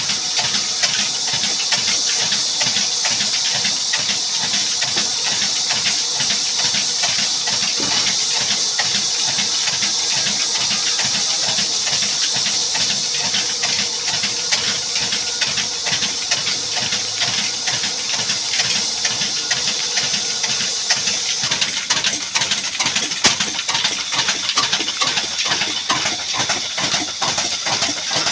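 Old black Ruston Hornsby-type diesel engine running steadily, with a fast, even exhaust beat and a strong hiss over it. About three quarters of the way through, the hiss drops a little and the beat turns rougher and more uneven.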